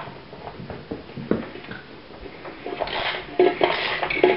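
Scattered metallic clicks and scraping of a 14 mm spanner as the Citroën Dyane 6's air-cooled flat-twin engine is turned over by hand, denser and louder in the second half.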